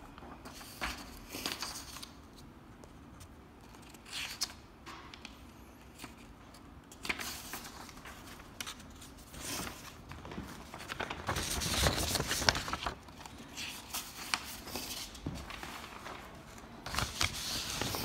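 Paper and envelopes rustling and being handled right at a phone's microphone, in irregular crinkles, scrapes and small clicks. The busiest stretch is a little past the middle, with another burst near the end.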